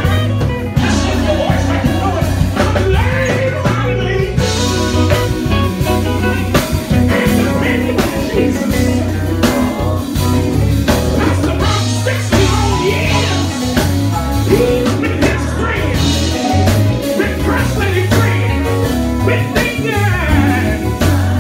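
Live gospel vocal group singing into microphones, with lead and backing voices, over electric guitar, keyboard, bass and drums.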